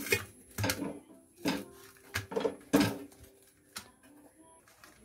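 Pizza-cutter wheel pressing and rolling through a toasted stuffed bread sandwich, knocking and scraping on the steel plate beneath with a brief metallic ring. About five strokes come in the first three seconds, then only a couple of faint clicks.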